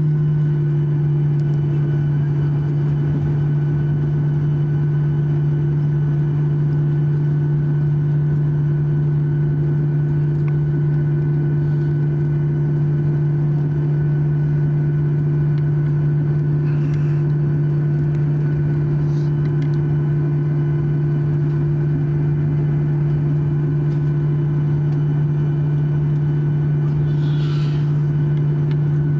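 Boeing 737-800 cabin noise while taxiing: the CFM56-7B engines at taxi power make a steady low drone with a fainter hum above it, heard from inside the cabin.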